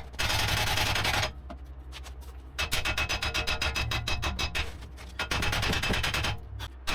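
A small hammer striking steel in quick repeated blows, driving the old wheel bearing out of the steering knuckle. The blows come in runs with a short pause after about a second.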